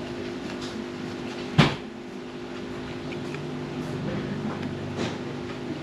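A single sharp knock about one and a half seconds in, over a steady background hum.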